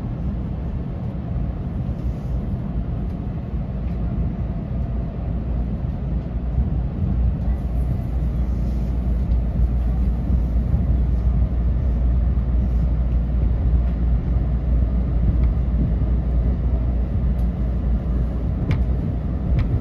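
JR West 227 series 'Urara' electric train running, heard from the driver's cab: a steady low rumble of the train on the rails, with two sharp clicks near the end.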